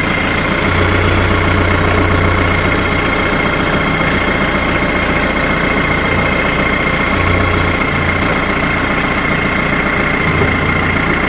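Branson F50 compact tractor's diesel engine running at low revs while the tractor edges forward and the loader hydraulics are worked to seat the loader on its mounts. The engine note swells and eases a few times under the changing load, with a steady high whine over it.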